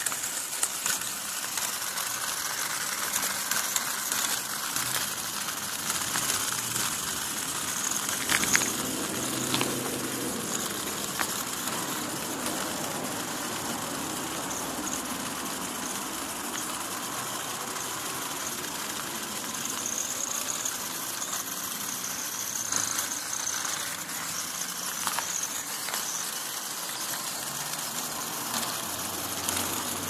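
Small robot's HUB-ee wheel gear motors whirring as it drives and skid-steers, its wheels crunching and rattling over loose gravel and a pebbly concrete path. The clattering is busier in the first part and steadier later on.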